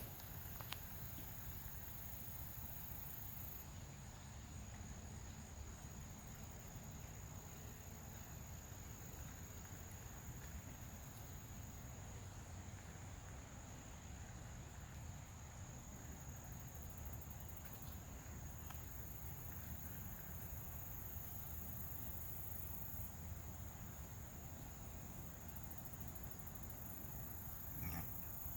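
Insects shrilling in one steady, unbroken high tone over a faint low rumble, with a brief louder sound near the end.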